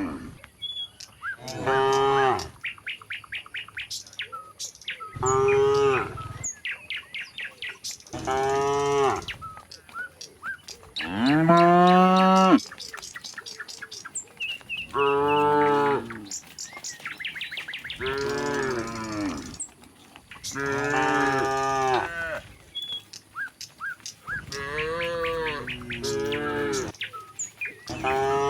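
Several cattle mooing back and forth, about eight long moos of one to two seconds each; the loudest and longest rises in pitch near the middle. Small birds chirp quickly between the calls.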